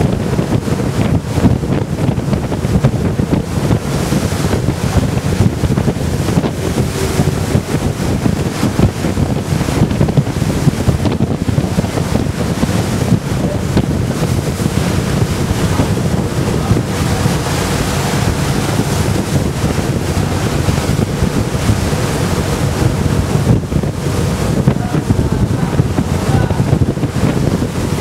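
Strong wind buffeting the microphone over waves rushing and slapping against a sailing yacht's hull in rough sea, with a faint steady hum beneath.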